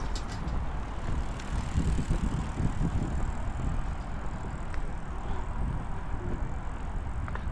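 Outdoor street ambience: a steady low rumble with a few faint clicks.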